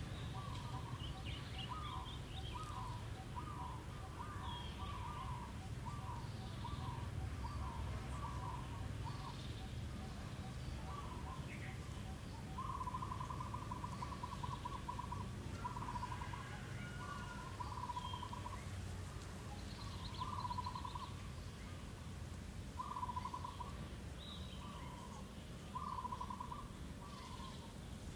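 Short hooting animal calls repeated in bouts, with one longer fluttering call partway through, over a low steady rumble. A faint rapid ticking, about four a second, runs under the first part.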